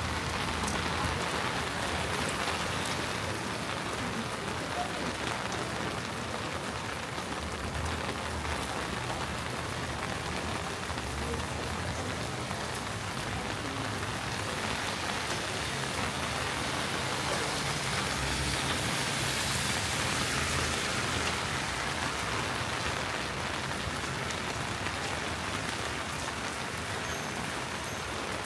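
Steady rain falling, with a faint low rumble underneath that comes and goes.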